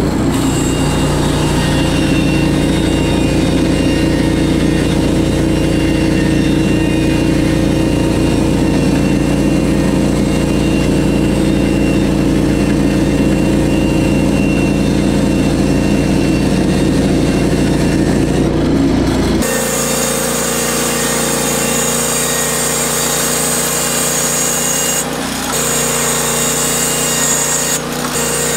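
Norwood HD36V2 portable band sawmill's gas engine running steadily. About two-thirds of the way through the sound changes abruptly: the low engine hum drops away and a higher, hissier sound takes over.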